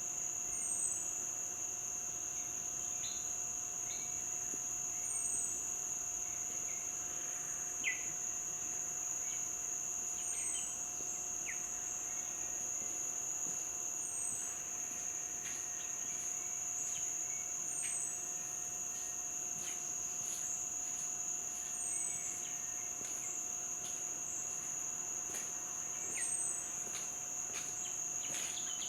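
A steady, high-pitched insect chorus drones without a break. A short, high falling chirp repeats about every two seconds, over a faint even hiss of stream water.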